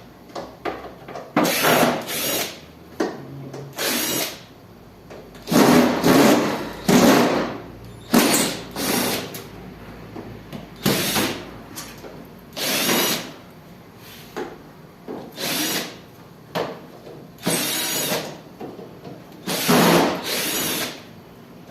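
Cordless drill-driver run in many short bursts of about a second each, with pauses between, backing the screws out of a window air conditioner's casing.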